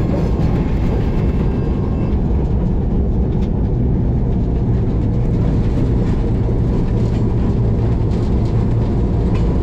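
HBU-20 diesel locomotive running steadily, heard from inside its cab: a loud, even low drone of the engine and rolling train, the train moving slowly.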